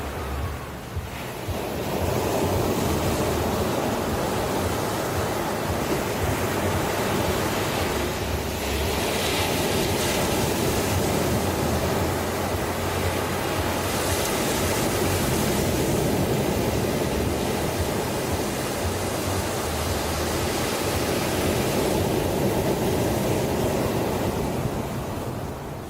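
Ocean surf: waves breaking and washing in as a continuous rush. It is quieter for the first second or two, then builds. Brighter, hissier surges come about nine seconds in and again around fourteen to sixteen seconds, and it eases near the end.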